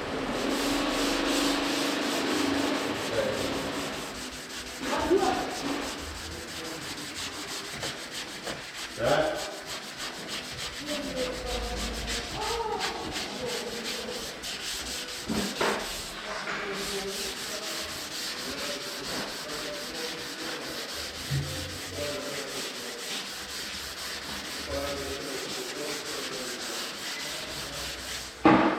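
Sandpaper rubbing over cured body filler on a minibus panel during 180-grit sanding: a continuous rasping scrape with occasional squeaks and a few knocks.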